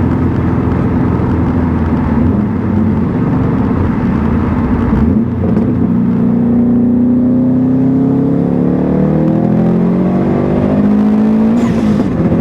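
A 2015 Subaru WRX STI's turbocharged flat-four boxer engine pulling under acceleration, its pitch rising steadily for several seconds, then breaking and dropping near the end.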